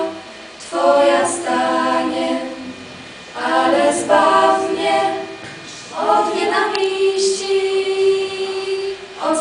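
A small group of teenage girls singing a slow song a cappella together, in three phrases with short breaths between them, the last ending on a long held note.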